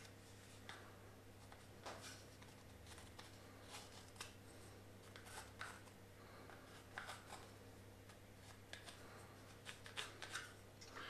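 Near silence, broken by faint pen scratches and small clicks as a pen traces around a plywood trigger part, over a low steady hum.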